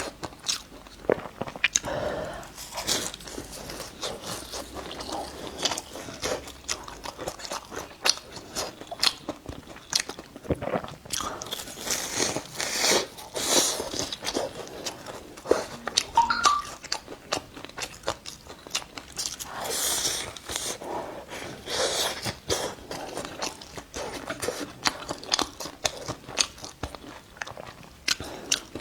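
Close-up biting and chewing of a meat-filled mooncake, its pastry crust crunching and crackling in many small irregular clicks between chews.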